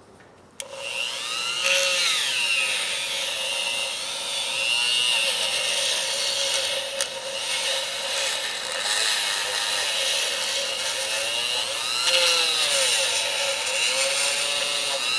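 A small electric power tool switches on and runs, cleaning Craftsman sockets, its whine dipping and recovering in pitch as it is pressed against the work.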